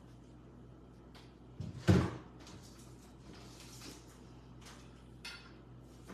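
A door shutting: a soft knock, then one loud thud about two seconds in, followed by faint clicks and rustles of handling.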